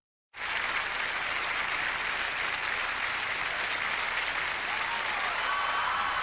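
Large theatre audience applauding, cutting in suddenly after a moment of silence and holding at a steady level, with a few high sliding tones near the end.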